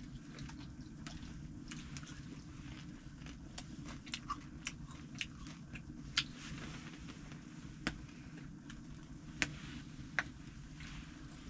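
Scattered sharp crackles and clicks at irregular intervals, a few louder snaps among them, over a steady low rumble.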